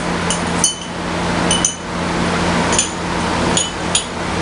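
A muddler pounding ingredients for a mojito inside a drinking glass: irregular sharp glass clinks, often in quick pairs, over a steady noise.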